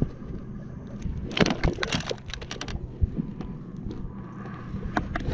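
A cluster of clicks and knocks on a plastic fishing kayak, as gear on deck is handled, over a steady low hum.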